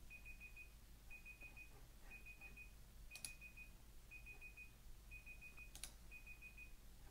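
Google's browser timer alarm beeping faintly: a quick run of four or five high beeps about once a second, signalling that the timer has run out. A few faint clicks fall among the beeps.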